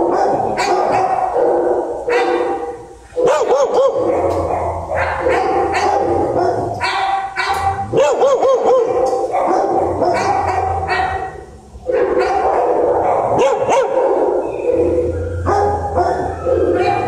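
Several dogs barking at once in shelter kennels, the barks overlapping almost without a break. The din drops off briefly twice, about three seconds in and again near twelve seconds.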